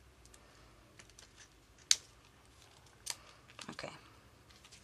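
Light clicks and paper rustling from hands working a stack of paper strips held on a metal split pin (paper fastener), with one sharper click about two seconds in.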